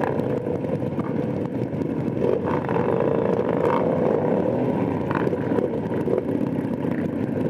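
Motorcycle engines running at low revs as a group of bikes rolls off at walking pace, the nearest being the rider's own Harley-Davidson V-twin. Steady, continuous rumble with slight rises and falls.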